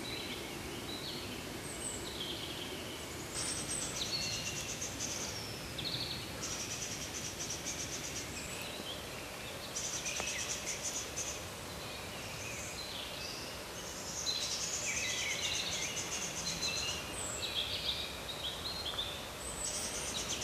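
Several songbirds singing and chirping, a mix of short high whistled calls and fast, buzzy trills that come and go every few seconds.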